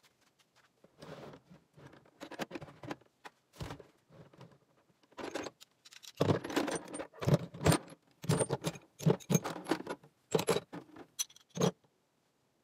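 Metal hand tools (chrome ratchets, sockets and extensions) clanking and jangling against each other and the metal toolbox as they are lifted out by hand, in quick irregular clatters. Sparse at first, louder and busier in the second half, stopping about a second before the end.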